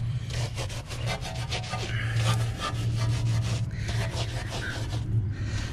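Stiff wheel brush scrubbing the inside of a wet, soapy alloy wheel, in quick back-and-forth rubbing strokes. A steady low hum runs underneath.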